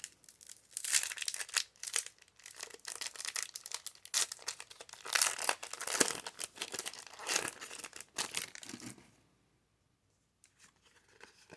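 A Pokémon Fusion Strike booster pack's foil wrapper being torn open and crinkled by hand, in quick irregular rips and crackles that stop about nine seconds in, leaving only a few faint ticks.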